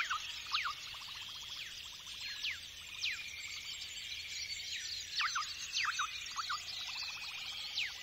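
A chorus of many birds calling at once, with repeated quick falling whistles and short rapid trills, heard as part of a soft ambient music track.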